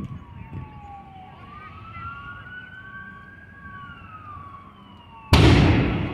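An emergency-vehicle siren wails, rising and falling in pitch. About five seconds in, the burning truck lets off a loud, sudden explosion that fades over about a second.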